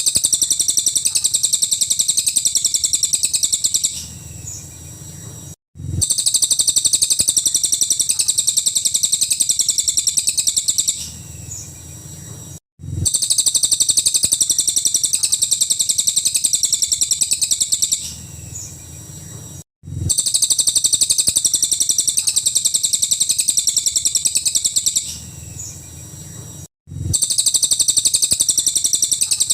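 Cililin song: long rapid-fire bursts of shrill, high-pitched repeated notes, each burst about four seconds long. Short pauses separate the bursts, each with a brief cut in the sound, and the pattern repeats about every seven seconds.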